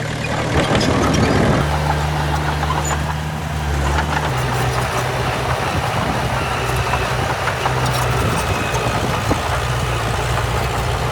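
Heavy diesel engine of earthmoving machinery running steadily, its note shifting about a second and a half in and again around four seconds, with faint clanks and a thin squeak later on.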